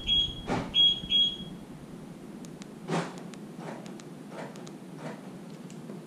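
A car's electronic beeper giving a few short high-pitched beeps in the first second and a half, with clunks of the door lock actuators of a 7th-gen Toyota Celica GT, then a louder clunk about three seconds in and a few fainter clicks. The doors are being locked to show that one door's worn actuator fails while the others lock.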